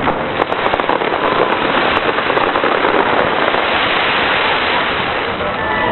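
Fireworks crackling: a dense, continuous rapid crackle, with sharper individual pops in the first few seconds.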